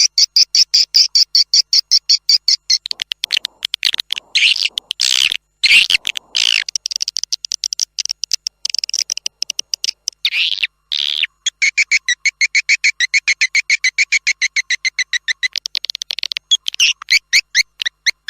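Swiftlets twittering in fast trains of short, high chirps, with a few longer raspy calls in the middle. This is a swiftlet calling-sound recording of the kind played by swiftlet farmers to lure the birds into a nesting house.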